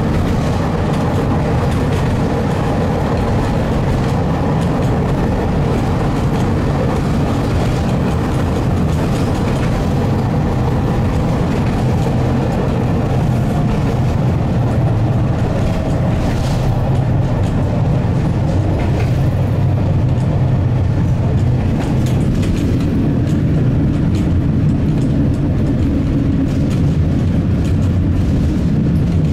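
Tram running along the track, heard from on board: a steady rumble of steel wheels on rails with a few short clicks.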